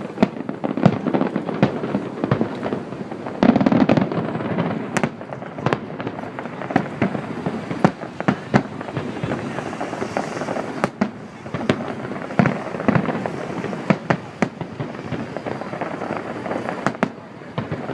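Aerial fireworks going off in an irregular stream of sharp bangs over a continuous rumble and crackle.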